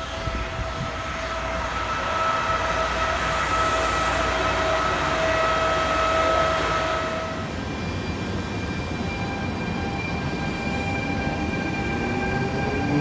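Trenitalia E.464 electric locomotive passing close by at low speed: rumble of wheels on rail under a steady electric whine. The whine changes pitch about seven seconds in, and near the end lower tones start to rise.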